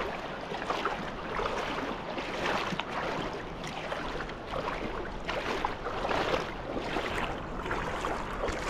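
Feet wading through shallow reef water: irregular sloshing splashes every second or so.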